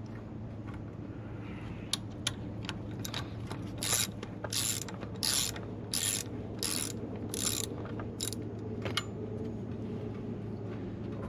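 Socket ratchet wrench clicking as bolts are loosened: scattered clicks, then a run of about eight short ratcheting strokes in the middle, with a steady low hum underneath.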